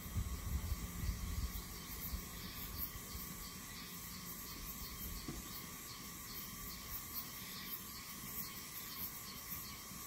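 Insects chirping in a steady, evenly pulsing rhythm, several pulses a second, over a faint background. A low rumble sits under it for about the first second and a half.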